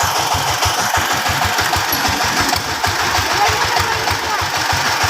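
A vehicle engine running steadily, with a rapid, even low chugging.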